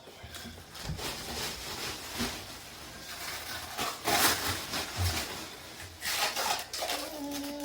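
Irregular rustling, rubbing and a few light knocks of things being handled, with a short held tone near the end.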